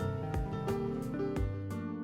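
Background music: a gentle instrumental track with piano-like notes over a steady beat.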